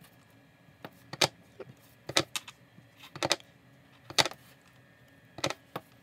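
Clear acrylic stamping block being set down and pressed in short repeated strokes, a sharp click every second or so, as a partial texture stamp is inked onto the edges of a paper panel.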